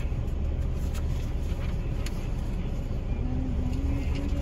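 A motor vehicle idling: a steady low rumble.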